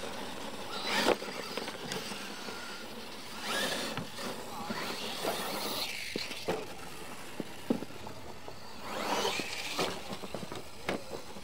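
Electric Losi LMT radio-controlled monster trucks racing on dirt: a steady whir of motors and tyres churning the dirt, swelling twice, with sharp knocks scattered through as the trucks land and bounce off the ramps.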